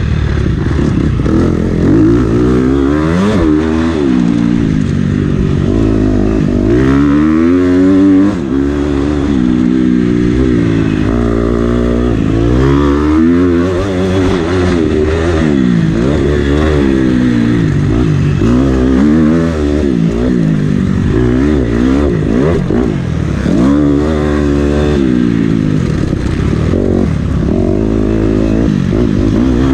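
Motocross bike's engine heard from on board, revving hard and dropping back again and again as the rider accelerates, shifts and rolls off for corners.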